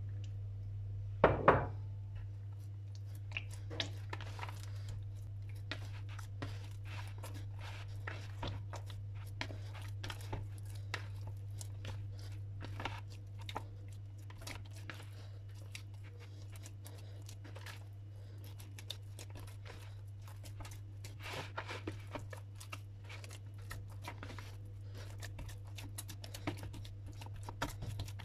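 Hands kneading sticky, oiled bread dough in a plastic bowl: irregular soft squelching and tearing sounds. There is a sharp knock about a second in and a steady low hum underneath.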